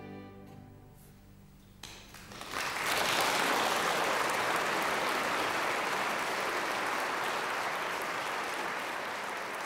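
The last held chord of two singers and a string ensemble fades out into a brief hush. Audience applause then breaks out about two seconds in, swells quickly and holds steady.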